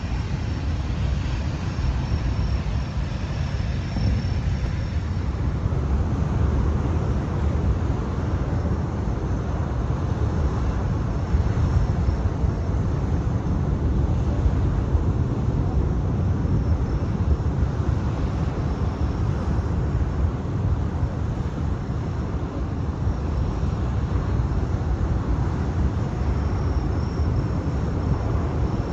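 Strong wind buffeting the microphone: a steady, gusting low rumble with no letup.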